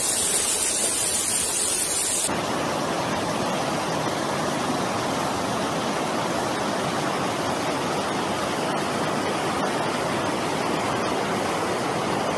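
Fast-flowing floodwater rushing through a street: a steady, even rushing noise. A brighter hiss on top drops away abruptly about two seconds in.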